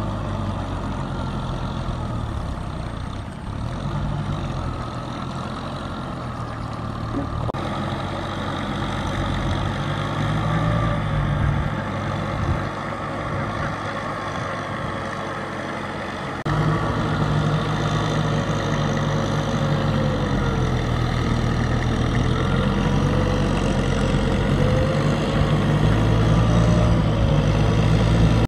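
Farm tractor's diesel engine running under load as it drives a rear rotary tiller through a wet paddy field. Its pitch wavers a little, and the sound gets suddenly louder just past halfway.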